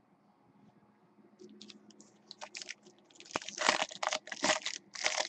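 Foil wrapper of a baseball card pack crinkling and tearing as it is handled and opened. It starts about a second and a half in as scattered crackles and grows dense from about three seconds in.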